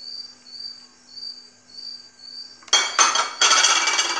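A cricket chirping in a steady rhythm, short high chirps a little under twice a second. About two-thirds of the way in it is drowned by loud clattering and scraping as the salad is stirred in a glass dish.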